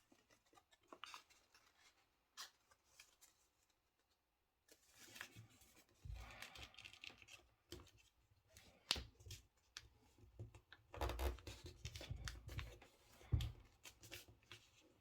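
Sheet of paper being folded and creased by hand: scattered soft crinkles and rustles, sparse at first and busier from about the middle on.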